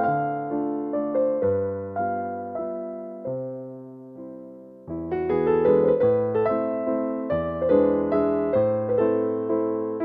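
Background piano music: a gentle run of notes that thins to a single held chord, fading in the middle, then picks up again about five seconds in.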